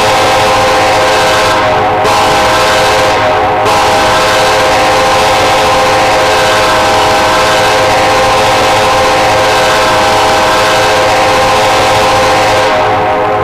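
Air horn of Norfolk Southern locomotive 4001 sounded in a horn test: one loud, multi-tone chord held almost without a break, easing briefly twice in the first few seconds.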